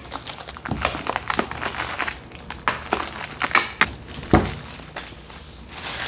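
Packaging being ripped off a tablet's retail box by hand and crumpled, a dense run of crackling and tearing with a sharper knock about four seconds in.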